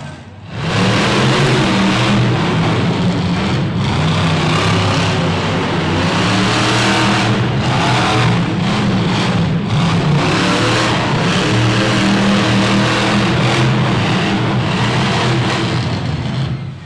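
Monster truck engines revving hard and running loud under an arena roof, the engine pitch rising and falling as the trucks accelerate over the dirt jumps.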